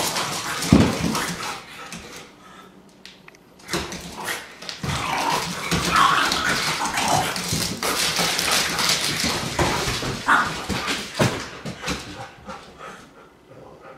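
An Irish Setter and a small dog playing: whines, yips and barks, with claws clattering on a hardwood floor. It goes quieter for a moment about two seconds in and dies down near the end.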